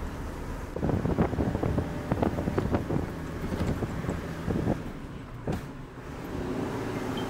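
Truck running, its engine note steady at the start and end. For about four seconds in the middle, the ride is dominated by irregular rattling and knocking, with one sharp knock a little later.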